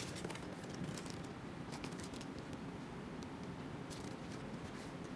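A cardboard box being handled and opened, its lid sliding and flaps lifting, with scattered light scrapes, taps and a rustle of plastic packaging over a steady low background noise.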